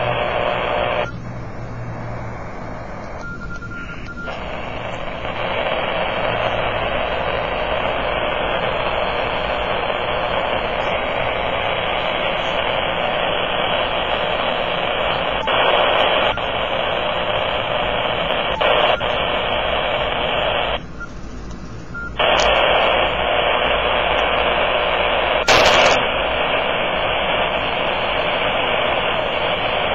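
Kenwood TS-480 transceiver's speaker in AM mode giving a loud, steady hiss of interference noise across the HF bands, which the owner attributes to powerline RFI. The noise drops away briefly twice as the band is switched, and a short sharp crackle comes a few seconds before the end.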